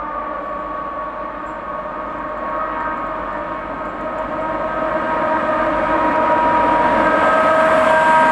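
Diesel locomotive at the head of a container freight train approaching, its engine running with a steady droning note that grows louder as it nears.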